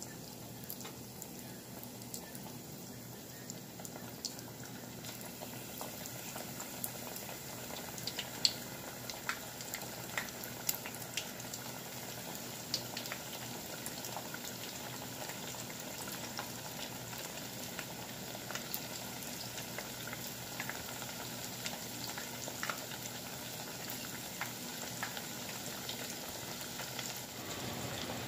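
Panko-breaded butterfly shrimp deep-frying in hot oil in a saucepan: a steady sizzle with scattered sharp crackles and pops, growing a little louder over the first few seconds.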